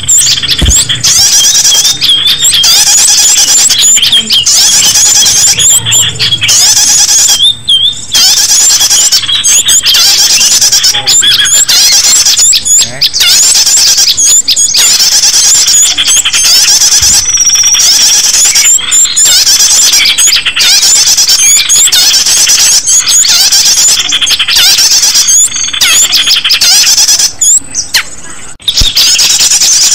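Small-bird lure call recording: a loud, dense stream of shrill, high-pitched chirps and squeaky trills repeating rapidly, broken only by short pauses.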